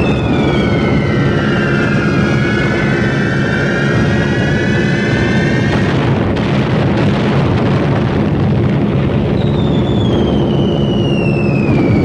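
Steady drone of B-17 bombers' piston engines, with the whistles of falling bombs over it: several overlapping whistles falling in pitch during the first six seconds, then another long falling whistle starting about nine and a half seconds in.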